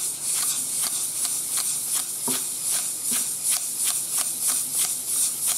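Fine 2000-grit wet sandpaper rubbed by hand in quick circular strokes over the machined running face of a hydrostatic transmission part: a steady scratchy hiss with a stroke every fraction of a second. This is the final pass of resurfacing a gouged face.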